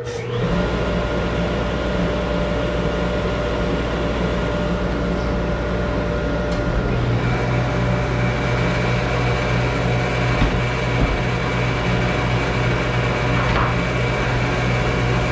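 Spindle shaper with a power feeder starts up and runs steadily as oak flooring boards are fed through it to have their grooves cut. A higher whine joins about seven seconds in.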